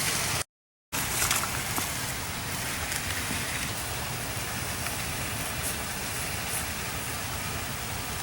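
Steady outdoor background noise with no distinct event, broken by a brief dead-silent dropout about half a second in.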